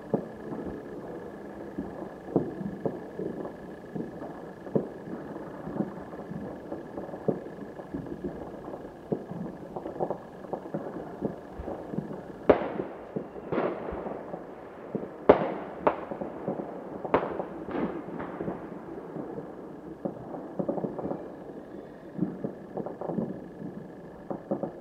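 Fireworks and firecrackers going off in irregular pops, the sharpest and loudest cluster about halfway through, with a faint steady high tone underneath.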